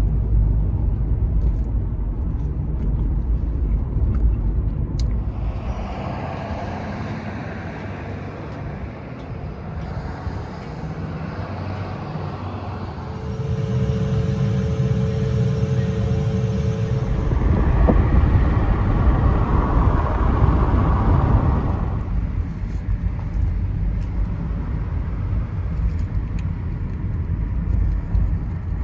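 A motor vehicle on the move: a steady low rumble of engine and road noise, with a brief steady hum near the middle and a louder, noisier stretch a little later.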